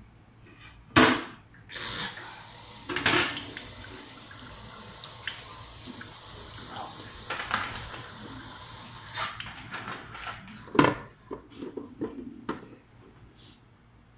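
Water sprinkled onto the hot plates of an Oster arepa maker, sizzling with a steady hiss, broken by a few louder splashes, and dying away near the end. The sizzle shows the plates are heating again.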